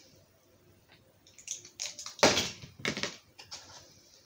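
Hard plastic toy helicopter parts being handled and fitted together: scattered clicks and rustles. The loudest sharp rattle comes about two seconds in, with another just under a second later.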